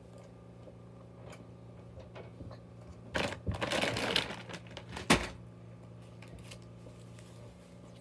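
Close crackling and clicking of something handled near the microphone, a dense burst about three seconds in lasting over a second, then one sharp click, over a steady low hum.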